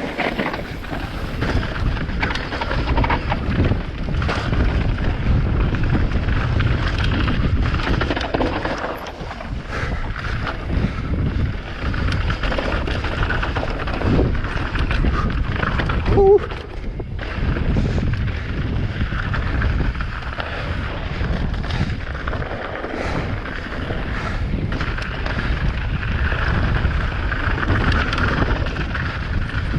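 A mountain bike descending a rough trail at speed, its tyres and frame rattling over rocks while wind buffets the microphone. A brief squeal cuts through about halfway.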